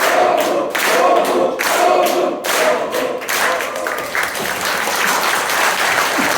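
A crowd chanting together in unison, about one phrase a second, with clapping underneath. About three seconds in, the chant gives way to steadier clapping and cheering.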